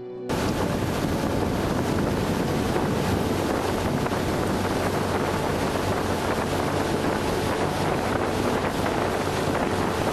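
Motorboat under way: a steady engine drone with wind buffeting the microphone and water rushing past the hull.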